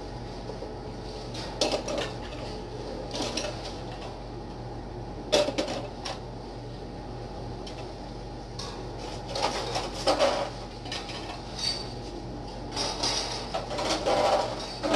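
Intermittent clatter and knocks of dishes and kitchen utensils being handled, busier in the second half, over a steady low hum.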